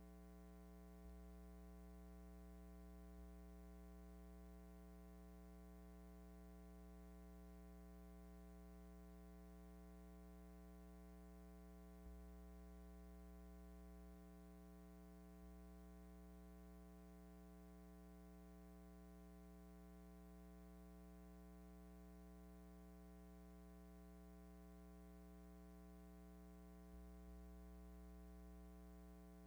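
Near silence: a faint, steady electrical hum with a stack of overtones and a few faint clicks. It is the background noise of a film transfer with no soundtrack.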